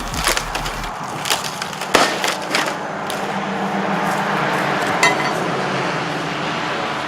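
A flat-screen TV being smashed with tools: several hard blows and cracks in the first few seconds, then a steady noisy rush with a single sharp clink about five seconds in.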